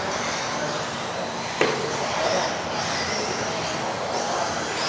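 Electric RC off-road buggies racing on an indoor carpet track, their motors whining and gliding up and down in pitch as they accelerate and brake. A single sharp knock comes about a second and a half in.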